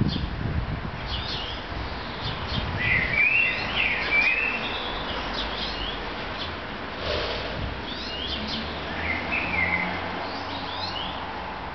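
Small birds chirping and singing in short, quick calls that sweep up and down, several overlapping, over a low rumble on the microphone near the start.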